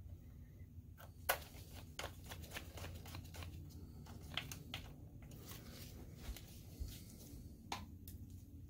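Faint clicks and ticks of a small hand screwdriver driving a screw through a ground strap into the projector's metal chassis, with light taps of handled parts, over a low steady hum.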